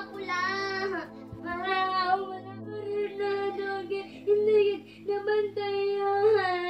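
Music: a child's voice singing a slow melody with long held notes over a steady low accompaniment.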